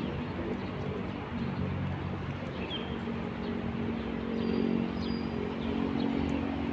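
A steady low motor hum, like an engine running, with a few faint, short high chirps over it.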